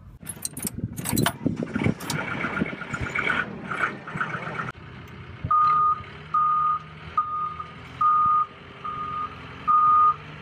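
Knocks and rattles at first. Then, from about halfway through, a Liebherr 508 Stereo wheel loader's reversing alarm beeps evenly, a little more than once a second, over its running engine: the loader is backing up.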